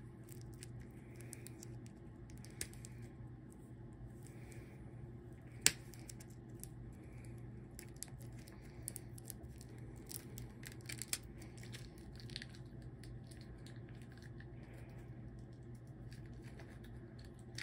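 Faint handling sounds of the plastic shrink wrap on a card deck being picked at: scattered small clicks and light crinkling, with one sharper click about six seconds in, over a steady low hum.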